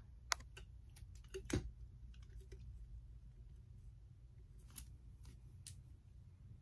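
Scattered small clicks and taps, several close together in the first two seconds and a few more near the end, over a low steady hum.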